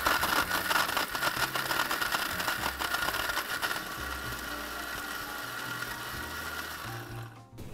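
Electric mixer-grinder running steadily, grinding a masala paste of coriander seeds, cumin, dried red chillies, curry leaves, garlic, tamarind and grated coconut, then switched off near the end.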